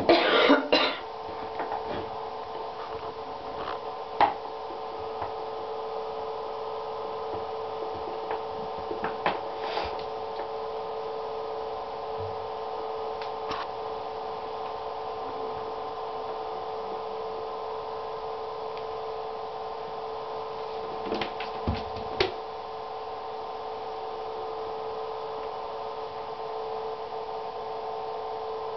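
A kitten's claws and a small toy knock and skitter on an empty acrylic whirlpool tub. There is a loud scrabbling flurry at the start, single knocks about 4 and 9 seconds in, and two more around 21 to 22 seconds, all over a steady hum.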